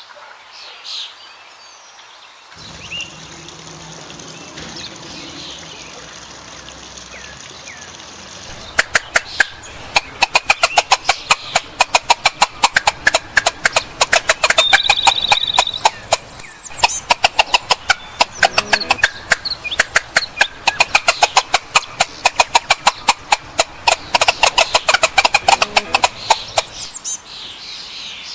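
Domestic fowl calling. About nine seconds in, a fast, sharp run of clicks or taps starts and carries on almost to the end, louder than the calls.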